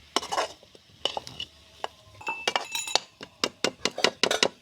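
A metal spoon or spatula stirring curry in a cooking pot: repeated scrapes and sharp clinks against the pot, coming faster in the second half, with a short metallic ring near the middle.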